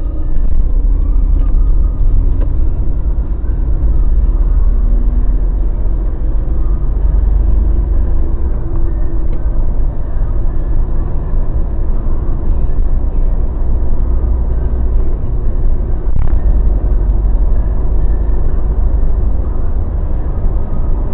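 Mazda BT-50 pickup on the move: a steady low rumble of engine and road noise, with a few faint clicks.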